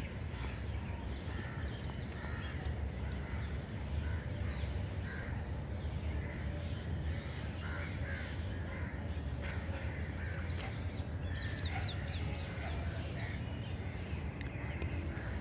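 Crows cawing again and again, with a short run of quick, high small-bird chirps a little before the end, over a low steady rumble.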